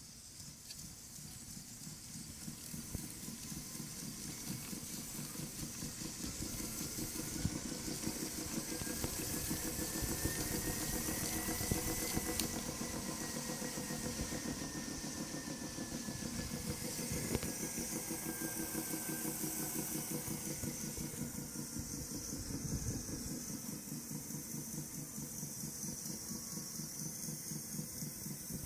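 Sole SB700 spin bike running with a rapid, steady clicking from its drive, plus a faint whine that rises in pitch toward the middle and then falls. The clicking is a fault in the new bike that persisted after a rear bearing change; the technician suspected the front flywheel, which seemed off center.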